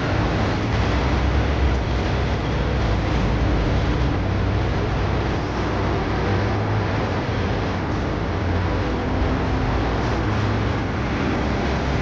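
Busy city street traffic: a steady rumble of buses and cars passing, mixed with general street noise.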